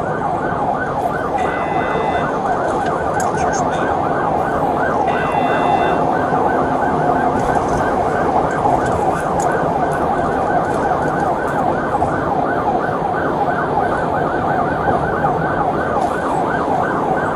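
Police car siren running in a fast yelp of rapid up-and-down sweeps, heard from inside the cabin of the car. A brief higher steady tone sounds twice, about 1.5 and 5 seconds in.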